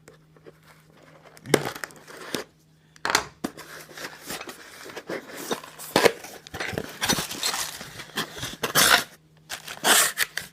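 Packaging being cut and torn open with a box cutter: irregular crinkling, tearing and scraping with sharp clicks, busier from about three seconds in.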